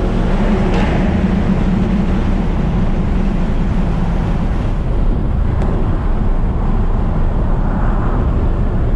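Car cruising at highway speed: a steady, loud engine drone mixed with road and wind noise.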